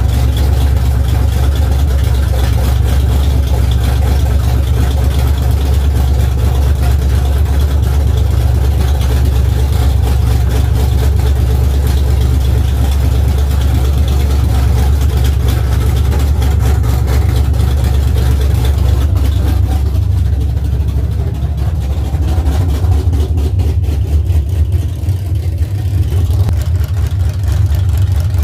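1976 Chevrolet Camaro's engine running steadily with a deep, low rumble, on its first run after sitting about ten years. It quietens a little about two-thirds of the way through.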